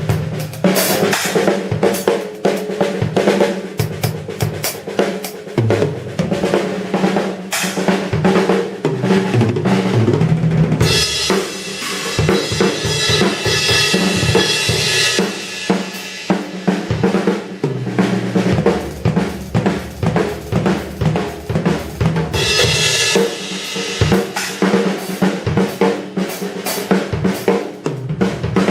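Sonor Force 2007 drum kit played solo: fast snare and tom strokes over the bass drum, with Paiste cymbals and hi-hat. A long cymbal wash rings for several seconds partway through, and a shorter one comes near the end.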